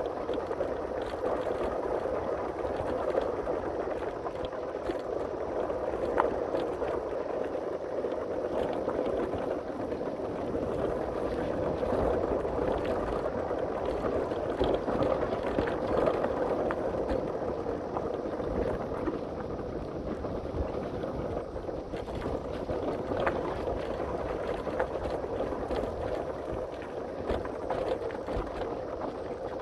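Rushing wind and road noise from a bike in motion, with steady small rattles and clicks and a few sharper knocks throughout.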